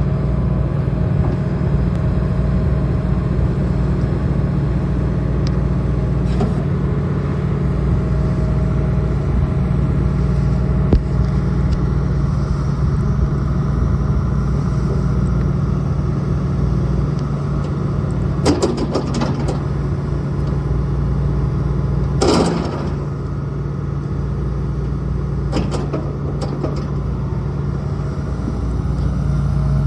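The Isuzu four-cylinder diesel of a John Deere 225D LC excavator running steadily, with a few brief sharp noises about two-thirds of the way through, near the end the engine settles a little quieter.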